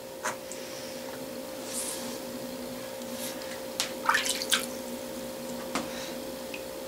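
Water splashing and dripping in a plastic tub as a hand scoops murky electrolysis-bath water over a rusty steel channel. The main splashes come about four seconds in, with a few single drips and knocks around them over a faint steady hum.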